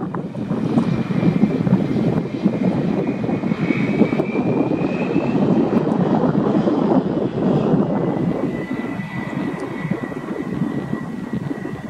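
Airbus A320's two IAE V2527-A5 turbofan engines running with a loud roar and a high whine during the landing roll. The roar is strongest in the middle and eases off toward the end.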